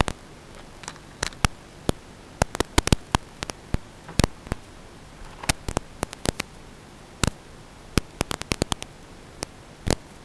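Steady hiss broken by irregular sharp crackles and pops, several dozen, some in quick clusters, like static. No motor sound is heard running.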